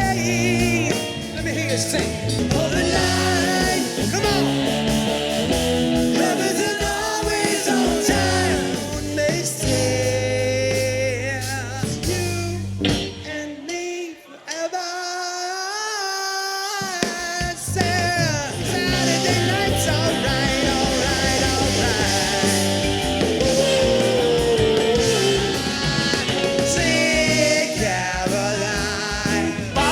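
A band playing soft rock with a lead singer. The bass and low end drop out for a few seconds about halfway through, then the full band comes back in.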